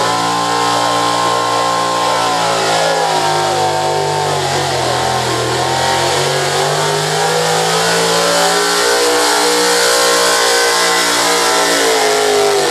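Pickup truck's engine running hard at full throttle, pulling a weight-transfer sled in a truck pull. The pitch holds high, sags for a couple of seconds midway as the truck bogs under the load, climbs back, then drops off near the end as the pull ends.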